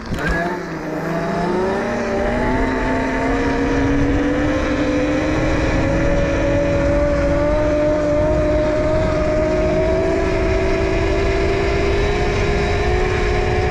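A 72-volt, 5000-watt electric pit bike's motor whining as the bike accelerates, its pitch rising slowly and steadily, over a low rushing noise.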